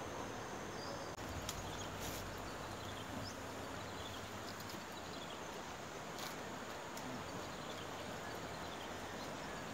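Steady outdoor background hiss with faint, repeated short insect chirps and a few scattered light clicks.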